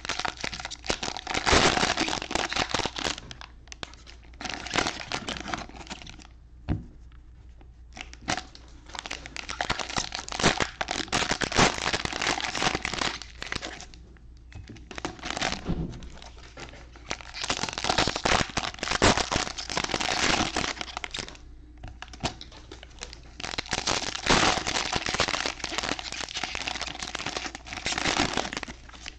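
Trading card packs being torn open and their wrappers crinkled, with cards being handled. The rustling comes in stretches of a few seconds with short pauses between.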